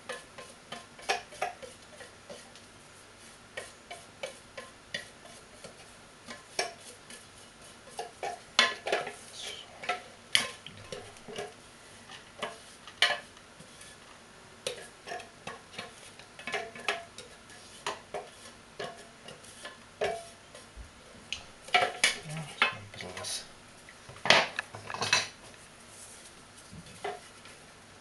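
Spatula scraping and knocking against the stainless-steel Thermomix mixing bowl as chopped parsley is scooped out: irregular clicks, taps and scrapes, in busier clusters about a third of the way in and again near the end.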